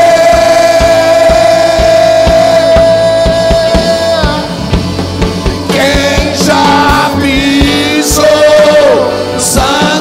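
Live Portuguese-language worship song played by a band with keyboard, electric guitar and a steady drum beat. A singer holds one long note for the first few seconds, and sung lines come back about six seconds in.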